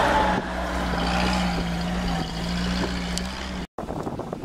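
Off-road 4x4 engine running with a steady drone. The sound cuts out abruptly about three and a half seconds in and comes back rougher and noisier, with wind on the microphone.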